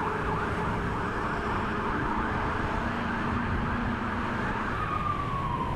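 Electronic emergency-vehicle siren sounding a fast yelp, then switching near the end to a slow wail that falls and starts to rise again, over a low rumble of street traffic.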